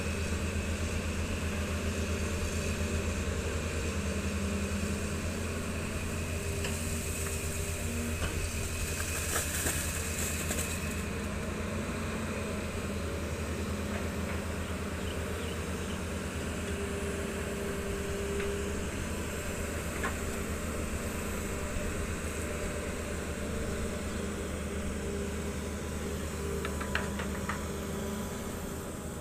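Volvo EC210B long-reach excavator's diesel engine running steadily while it digs, a constant low hum with a brief higher hiss about a quarter of the way in.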